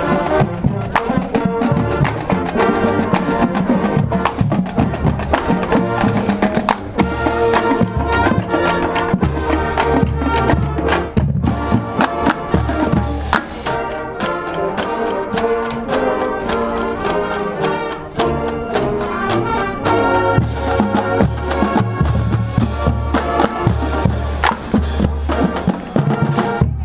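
Marching band playing: brass (trumpets and trombones) over a drumline, with a steady beat and frequent drum hits.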